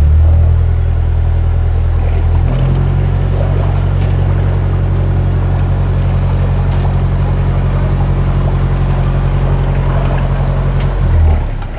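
Narrowboat's engine running steadily under way, louder for the first couple of seconds and then settling, with a brief rise in revs near the end.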